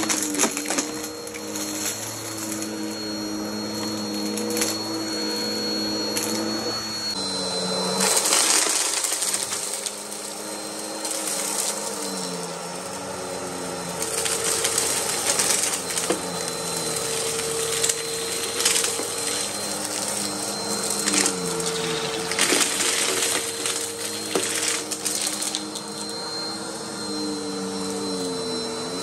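Vacuum cleaner running, its motor hum dipping in pitch and recovering several times, with crackling ticks of fine dirt and grit being sucked up.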